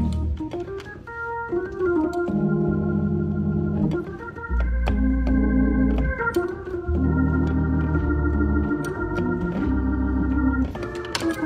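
Organ played in sustained chords that change every second or two, with deep bass notes dropping in and out beneath them.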